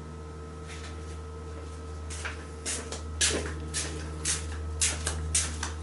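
A rubbing stone being stroked back and forth along the edges of a stainless steel part to dress them, a rasping stroke about twice a second starting about two seconds in, over a steady low hum.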